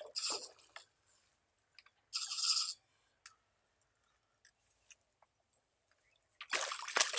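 A spinning reel cranking in two short bursts as a hooked fish is reeled in, then the fish splashing and thrashing at the water's surface near the end.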